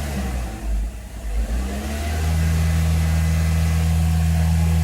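Toyota Corolla engine being revved lightly with the throttle. Its pitch wavers for about two seconds, then it holds steady at a raised speed.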